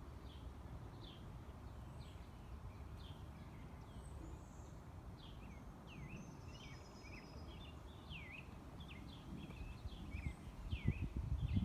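Birds chirping: many short, falling chirps, one or two a second. A low rumbling noise underneath grows louder near the end.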